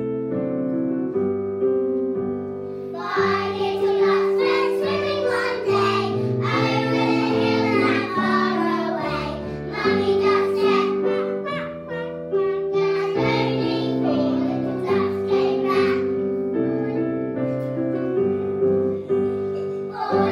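A piano plays an introduction, then a group of young children sing along with the piano from about three seconds in.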